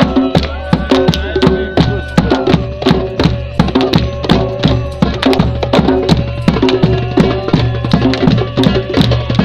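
Live music driven by a drum beaten in a fast, steady rhythm of several strikes a second, with sustained melodic notes and a low drone underneath.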